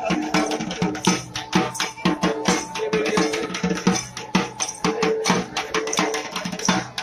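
Dhak, the large Bengali festival barrel drums, beaten with sticks in a fast, driving rhythm of several strokes a second.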